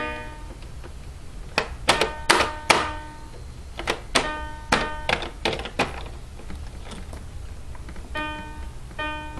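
A short run of bright, electronic-sounding melody notes from a switched-on music toy, broken by a cluster of about nine sharp knocks and thumps in the middle, which are the loudest sounds.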